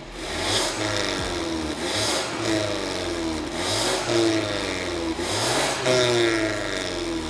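BMW 330i's B48 turbocharged four-cylinder engine revved four times from idle through a Stone Exhaust aftermarket catback, with the catback's valve control set to off. Each rev climbs quickly and falls back toward idle.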